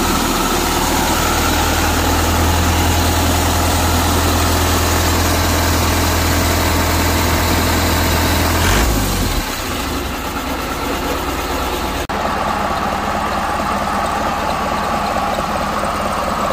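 Yanmar 4T98 four-cylinder diesel engine, taken from an AW82 combine harvester, running steadily with a deep drone. About nine seconds in the low drone drops away and the engine note changes.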